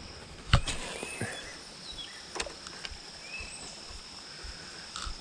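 Steady high-pitched drone of insects with a few short bird chirps over it. A sharp knock about half a second in, and a couple of lighter clicks later.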